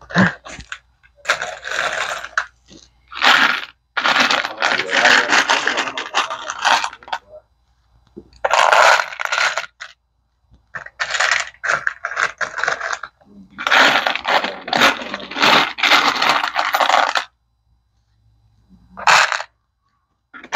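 Loose metal screws clinking and rattling against one another and the plastic as they are sorted by hand into the compartments of clear plastic organizer trays, in bursts of a few seconds with short pauses between.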